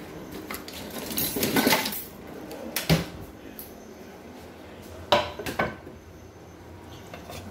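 Kitchen pans and utensils clattering as they are handled: a rattle of knocks about a second in, a single sharp knock near three seconds, and another short clatter around five seconds.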